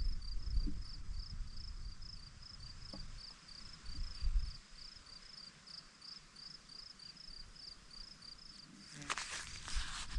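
Cricket chirping steadily, about four short high chirps a second, over a low rumble in the first half. The chirping stops about nine seconds in, and crinkling and sharp clicks of handling follow near the end.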